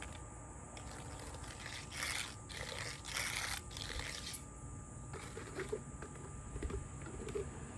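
A few short scraping strokes on asphalt, about two seconds in, from a hand tool working crack filler into a driveway crack.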